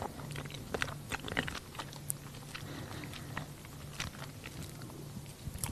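Quiet room tone with a low steady hum and faint, scattered small clicks and crunches.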